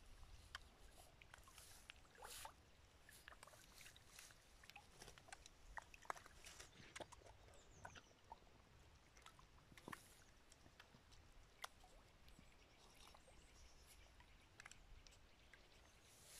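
Near silence, with faint scattered clicks and light rustles.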